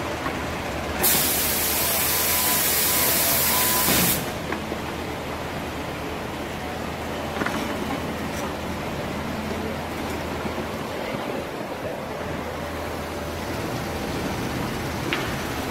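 Stone-coated roof tile coating line running with a steady machine hum. About a second in, a loud hiss starts and cuts off sharply some three seconds later; a few light clicks follow.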